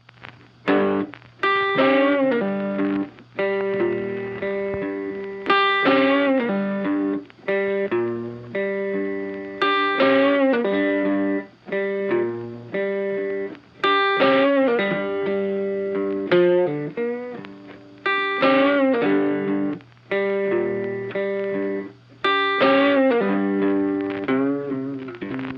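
Background music: a guitar melody with bent notes, in a phrase that repeats about every four seconds.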